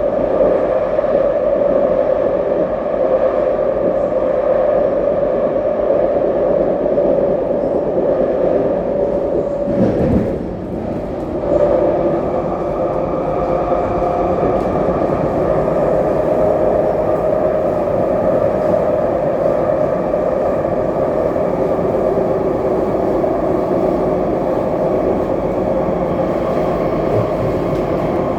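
SMRT C151B metro train heard from inside the car while running between stations, with loud bogie noise: a steady rumble of wheels and bogies carrying a droning tone. About ten seconds in the tone breaks off briefly with a short click, then returns.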